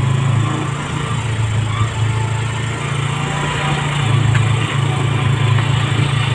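Small motorcycle engine running steadily under way, a continuous low drone.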